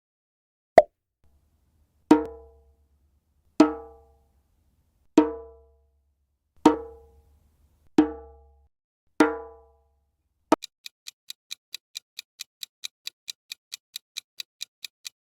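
A pitched drum struck six times, about a second and a half apart, each stroke ringing out briefly. Then comes a click and a steady ticking, about four ticks a second.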